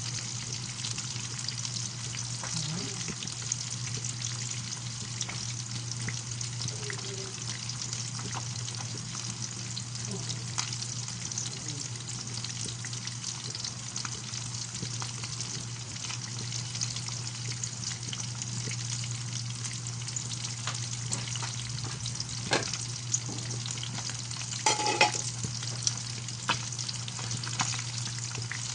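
Soy-marinated milkfish (bangus) frying in hot oil: a steady crackling sizzle, with a steady low hum underneath and a few sharp clicks near the end.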